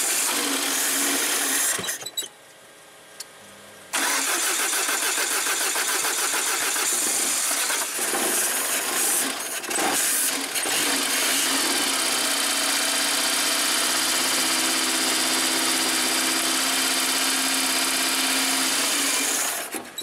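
The VAZ-2110's eight-valve carburettor four-cylinder is cranked on the starter in three attempts: a short one, one of about four seconds, and a long one of about nine seconds that cuts off just before the end. It is a hard start: the engine struggles to catch, and the mechanics put it down to flooding and a lack of fuel.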